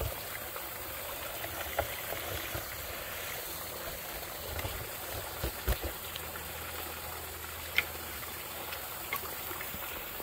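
Water trickling steadily into the mouth of a corrugated metal drain pipe partly clogged with beaver-dam sticks and debris, with a few faint knocks.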